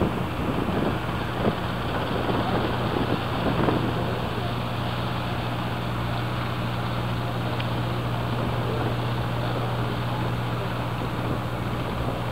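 Cruise boat's engine running with a steady low hum, under a constant rushing noise of wind and water past the moving boat.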